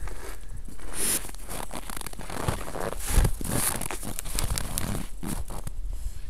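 Close crackling and rustling on a trail camera's built-in microphone: contact and handling noise as first a person's face and then a dog come right up against the camera, in many short, uneven scrapes.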